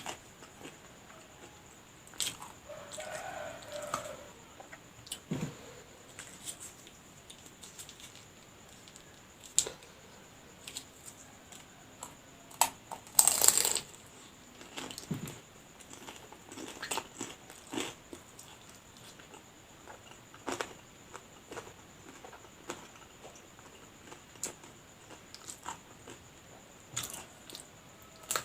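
Close-miked chewing and crunching of fried lumpia (spring rolls) filled with sausage and egg: scattered bites and mouth smacks, with one louder crunch a little under halfway through.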